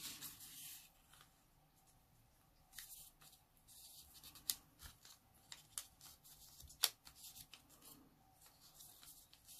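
Faint rustling of a sheet of coloured origami paper being folded and creased by hand, with a few sharp crisp clicks as the crease is pressed, the loudest about two-thirds of the way through.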